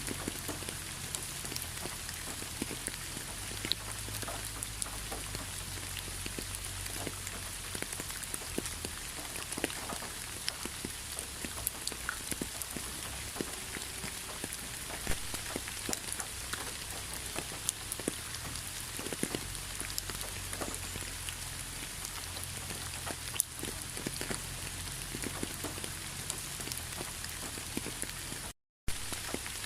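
Steady rain falling on a surface, an even hiss dotted with the ticks of individual drops. The sound cuts out completely for a split second near the end.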